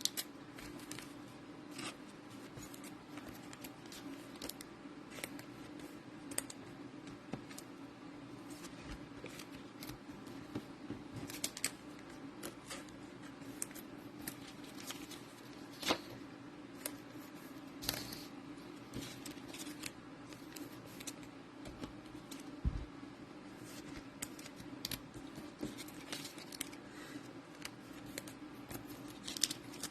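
Trading cards and card packaging handled at a table: scattered light clicks, taps and rustles, a few louder ones about twelve, sixteen and eighteen seconds in, over a steady low hum.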